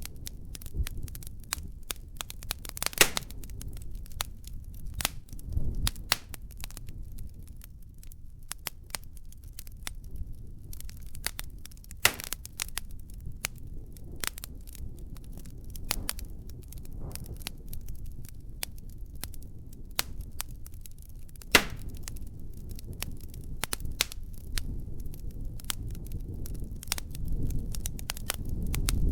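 A large fire crackling and popping, with irregular sharp pops over a steady low rumble of flames. Three pops stand out as much louder, and the rumble swells near the end.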